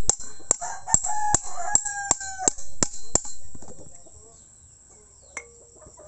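Hammer blows on the metal of a motorcycle front fork, about ten ringing strikes in quick, even succession that stop after three or four seconds. A rooster crows in the background during the hammering.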